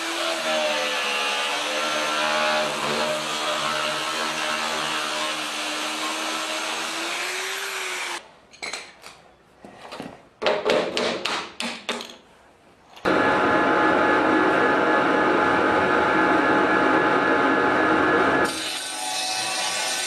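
A corded angle grinder runs and cuts at an old wooden window frame, its pitch wavering under load. This is followed by a few seconds of irregular knocks and clatter. About 13 seconds in, a table-mounted circular saw starts cutting the wooden frame loudly, easing off slightly near the end.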